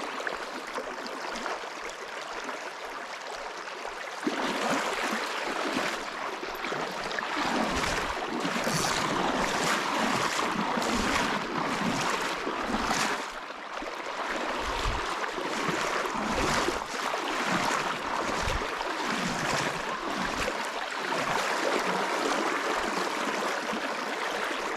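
Steady rush of flowing river water, louder from about four seconds in, with intermittent low rumbles.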